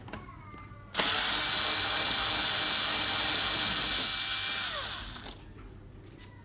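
Small electric screwdriver motor whirring as it backs out tiny panel screws. After a brief whir at the start, it runs steadily with a high whine from about a second in, then winds down with falling pitch around five seconds in.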